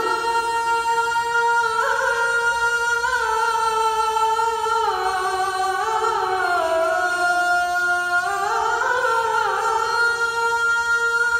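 Male muezzin singing the adhan (Islamic call to prayer) into a microphone, one long melismatic phrase held on a single breath. The pitch steps down through the middle and climbs again near the end. It stops at the end, leaving a short echo in the hall.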